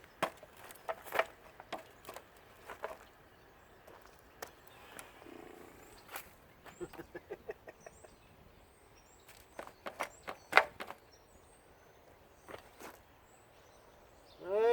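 Scattered clicks and knocks of hand work on the metal parts of a central air unit as fasteners are worked at, with a quick run of about a dozen ticks in the middle and the loudest knocks a little after.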